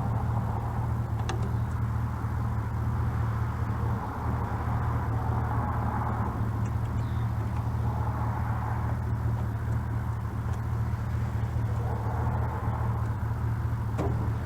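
A vehicle engine idling with a steady low hum and no revving.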